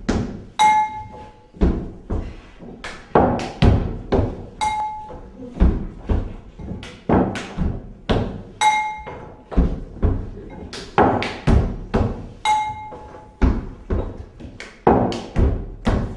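Dough slapped and thumped on a floured table in a steady rhythm, with a short metallic ring struck about every four seconds, like a percussion routine.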